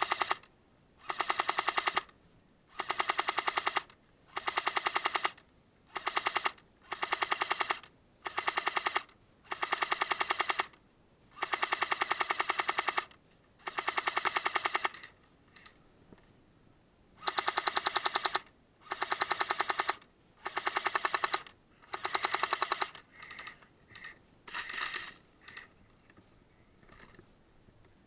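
Airsoft M60 replica firing in repeated sustained bursts, each about a second long with short pauses, a brief lull about halfway, then a few fainter, shorter bursts near the end.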